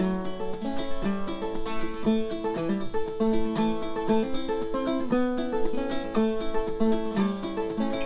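Background music: a quick tune of short plucked notes on acoustic string instruments.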